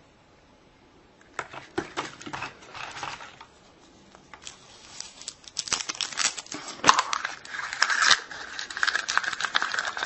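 Plastic surprise egg being opened by hand, with the plastic seal and the wrapping of the contents crinkling and tearing. Scattered sharp clicks start about a second and a half in and grow busier in the second half.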